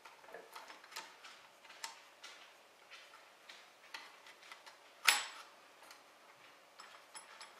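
Light clicks and taps of spool-holder parts being fitted onto a 3D printer's frame, with one sharper knock about five seconds in.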